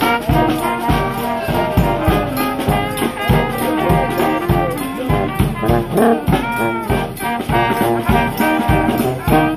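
Live brass band playing: sousaphone, trombone, trumpet and saxophones over a steady beat on bass drum and snare.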